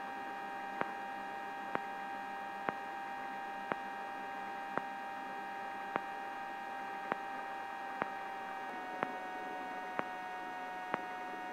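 Helicopter cabin sound heard through the intercom audio feed: a faint steady whine of several held tones, with a soft tick about once a second. The main tone steps slightly lower near the end.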